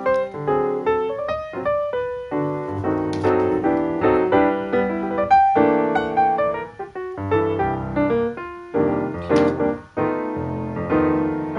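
Background piano music: many quick notes and chords played without a break.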